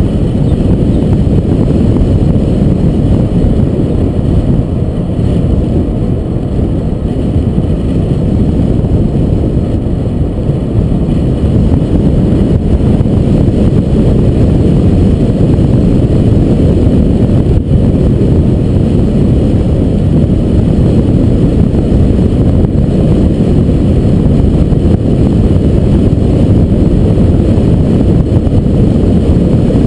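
Car driving along a highway at road speed: a loud, steady low rumble of road and wind noise with the engine underneath.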